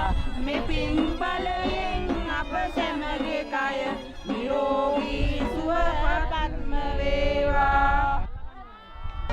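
Music with a voice singing a wavering, ornamented melody over a low accompaniment. It dips briefly near the end.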